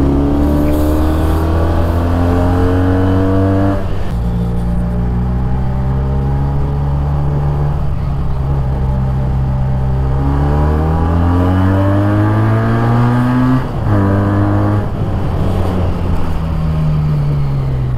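Benelli 302S motorcycle's parallel-twin engine pulling through the gears. Its pitch climbs and drops at an upshift about four seconds in, holds steady, climbs again and drops at another shift near fourteen seconds, then falls away as the throttle eases near the end.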